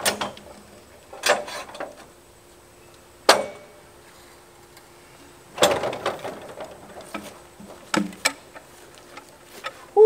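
Cant hook biting into a large gum log and being levered against it to roll the log on a portable sawmill bed: a handful of sharp metal-and-wood knocks and clanks, with a longer rattling scrape about halfway through.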